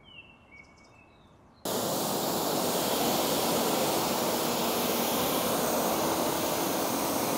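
Pressure washer spray hissing steadily as it rinses foam off a car's bodywork. It starts abruptly about one and a half seconds in.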